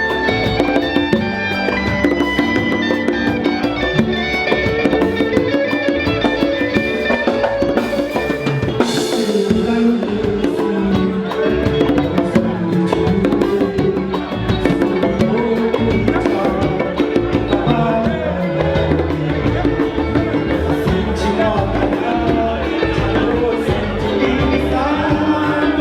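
Band music with drums and a steady beat, and some singing.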